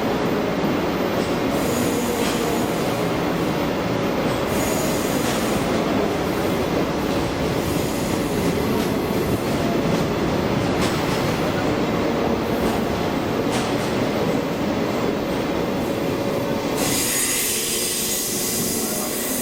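A train running on rails, a continuous steady rumble with wheel squeal. A brighter hissing noise comes in for the last couple of seconds.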